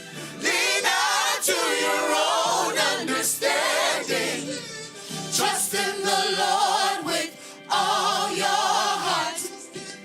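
Gospel choir singing with musical backing, several voices holding wavering lines, with brief drops in level about five and seven and a half seconds in.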